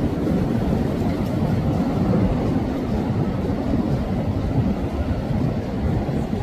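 Steady low rumble of a cabin cruiser's engines and the churn of its wake as it motors past close by.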